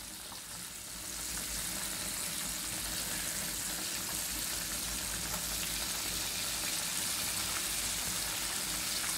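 Flour-coated chicken pieces deep-frying in hot oil on a low flame, a steady crackling sizzle that grows a little louder about a second in.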